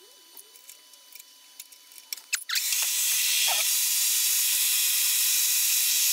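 A few small clicks of handling, then about two and a half seconds in a drilling machine starts and runs with a steady hiss as a long twist drill bores into a metal block under flowing coolant.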